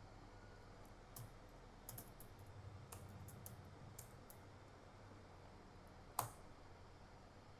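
Faint, scattered clicks of a laptop keyboard being operated, about ten in all, the loudest about six seconds in.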